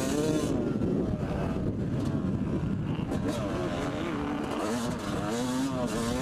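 Yamaha YZ250 two-stroke engine revving up and down as the bike accelerates and shifts along a motocross track, with wind rushing over the helmet-mounted microphone.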